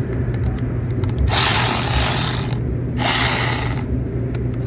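Ratchet wrench clicking in two strokes of about a second each, with a steady low hum underneath.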